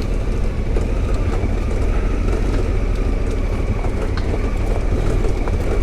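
Twin-cylinder adventure motorcycle engine running steadily at low trail speed, with scattered light clicks and knocks over rough ground.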